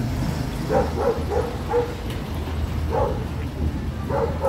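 A dog barking, about seven short barks in quick runs, over a steady low rumble.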